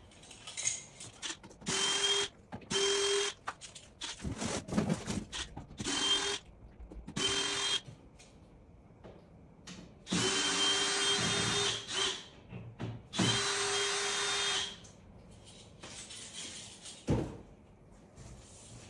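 Cordless drill spinning in short runs of one to two seconds, about six times, as it backs screws out of a plywood shipping crate. Knocks and handling noise come between the runs.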